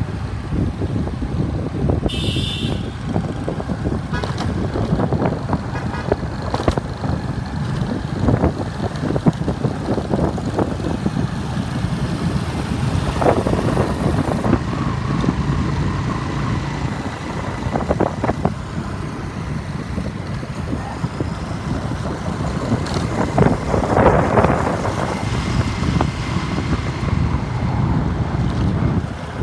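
Street traffic heard from a riding motorbike: a steady mix of small engines and road rumble, with short horn beeps now and then.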